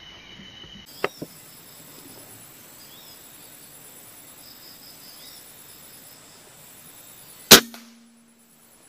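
An air rifle fires a single sharp shot near the end, the loudest sound by far, followed by a brief low hum. Before it, a steady chirr of insects with two small clicks about a second in.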